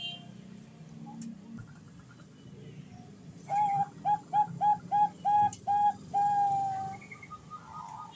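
Female Bangkok-type zebra dove (perkutut) cooing, a call to a male: a quick run of about seven short clipped notes, then one longer held note. A faint low hum lies underneath.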